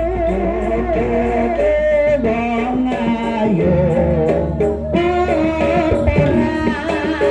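Live kuda kepang accompaniment music: a singing voice carries a melody over instruments and percussion, with a steady deep bass under the first half.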